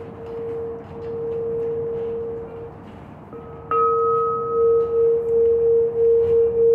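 Tall handheld Crystal Tones practitioner crystal singing bowl sung with a wand around its rim, holding one steady mid-pitched tone. About halfway through the wand strikes the bowl, a higher ring fades out over a second, and the main tone then sounds louder with a steady wavering pulse.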